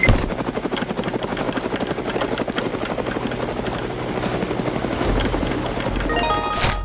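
Helicopter rotor chopping steadily, a fast even flutter. Near the end there is a brief run of quick rising tones.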